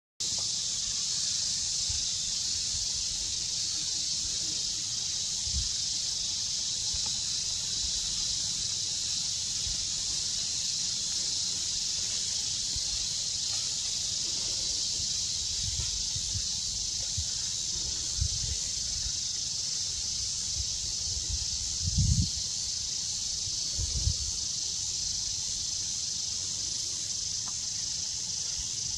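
Steady high-pitched drone of insects in the forest canopy, with a couple of short low thumps about two-thirds of the way through.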